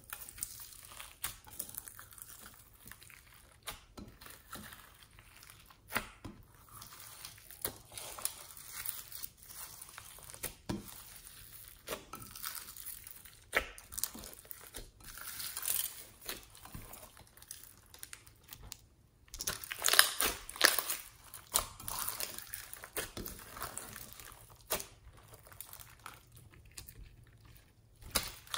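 Hands squishing and kneading clear slime packed with foam beads, sequins and glitter: an irregular run of sticky crackles, pops and crunches, busiest and loudest about two-thirds of the way through.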